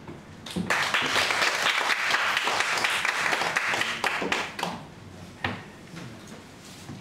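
Audience clapping and applauding, starting about half a second in and dying away after about four seconds. A single knock follows shortly after.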